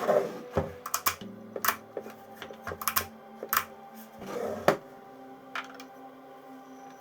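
Irregular clicks and light knocks of objects being handled, about a dozen, over soft background music.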